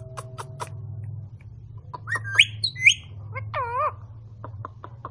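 Green ring-necked parakeet making a few clicks, then about two seconds in two sharp rising whistles, followed by a short wavering call and more clicks.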